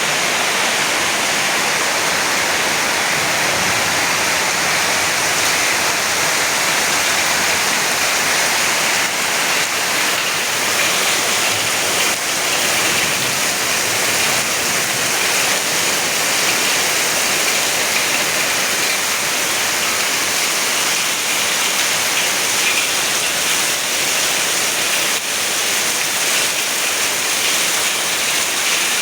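Very heavy rain pouring down in a steady, dense hiss.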